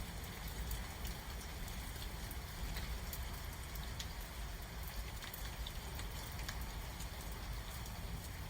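Steady rain falling during a thunderstorm, with scattered drops ticking close by over a low rumble.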